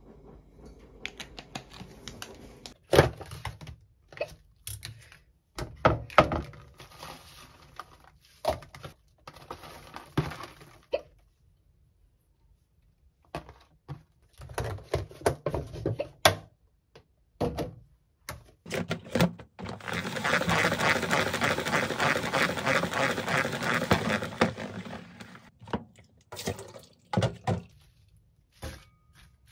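Sharp knocks and taps of kitchenware on a countertop, then a plastic salad spinner spinning washed lettuce for about four seconds with a fast, even rattling whirr, followed by a few more taps.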